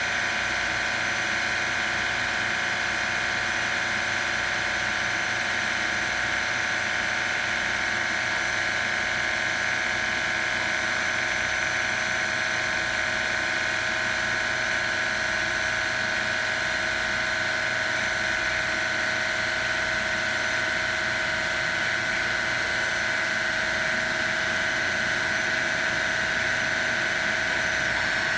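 Milltronics RW15 CNC vertical machining center running, giving a steady high-pitched motor whine that holds one pitch throughout.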